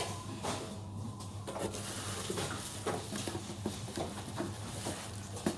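Scattered small clicks, knocks and rustles of objects being handled, over a steady low electrical hum.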